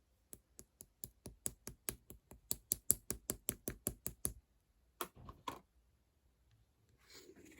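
Clear slime being poked and pressed, giving crisp clicking pops about five times a second for four seconds. A few wetter squishes follow, then a brief soft squelch near the end.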